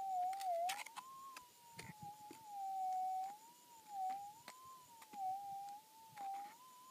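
Metal detector's steady threshold tone, wavering up and down in pitch and swelling in loudness as the elliptical search coil is swept slowly over rocky bedrock, with a few sharp clicks.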